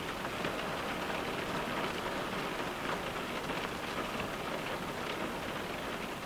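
Steady rain falling on a car's windows, a dense patter of many small drops on the glass.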